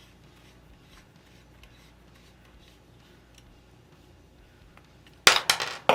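Faint small ticks of hand work, then near the end a sudden loud metallic clatter with ringing: the Timney drop-in trigger's pins falling out of the receiver, loose because nothing holds tension on them.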